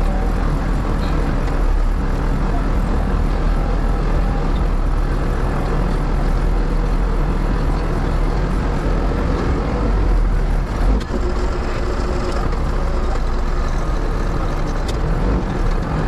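Backhoe loader's diesel engine running steadily, heard from inside the cab, briefly louder about eleven seconds in.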